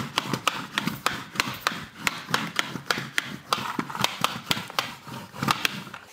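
Wheeled pet-hair roller with an internal collecting brush being rolled back and forth over a cotton T-shirt: a rubbing sound with irregular sharp clicks, several a second.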